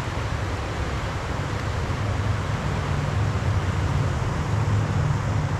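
Fast river current rushing steadily over a shallow riffle, with a low rumble underneath.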